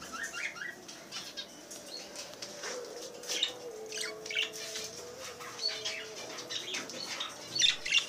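Small caged pet birds chirping in many short, scattered calls, with wings fluttering.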